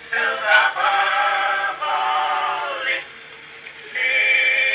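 Male voices singing long held notes, as played back from an early acoustic Edison Blue Amberol cylinder on a horn phonograph, with the sound thin and cut off at the top. The notes are three long ones, the second bending upward as it ends, with a short pause before the third.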